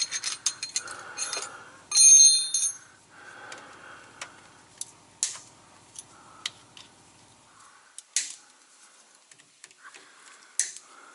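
Metal clinks and clicks of parts and tools being handled. The loudest is a ringing metallic rattle about two seconds in, followed by scattered sharp taps.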